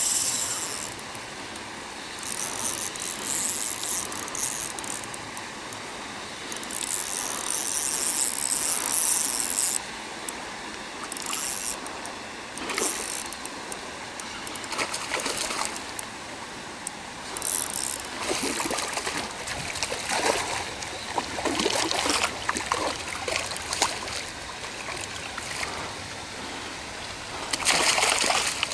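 A large rainbow trout being played on lure tackle. The fishing reel runs in several bursts through the first half, then the hooked fish splashes at the surface in repeated strokes, with the loudest thrashing near the end as it comes to the landing net.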